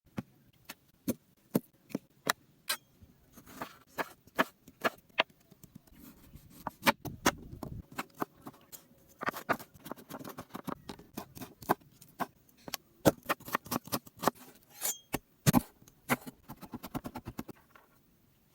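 Sharp knocks and taps of food preparation with cooking utensils, a few a second at first, then a busier clatter mixed with scraping and rustling, stopping about a second before the end.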